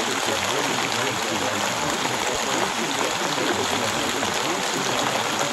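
Steady rain noise, an even hiss, with a muddle of faint, overlapping voice-like sounds buried underneath.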